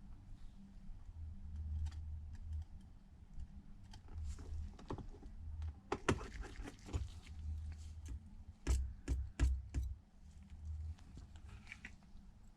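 Small metallic clicks and taps of a precision screwdriver driving tiny screws into a metal plate inside an iPad Pro. There is a cluster of sharp clicks about halfway through and a few more shortly after.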